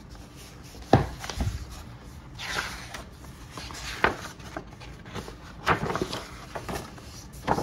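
A large folded paper map being unfolded by hand, with paper rustling and crackling in short bursts, and a light knock of the book being handled about a second in.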